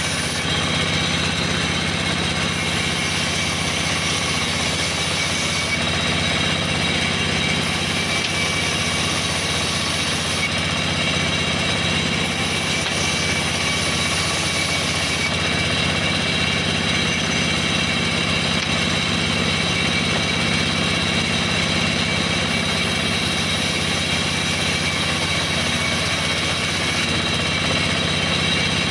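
Band sawmill running steadily as a plank is ripped on its vertical blade: a constant low hum with steady higher tones over it, unchanged throughout.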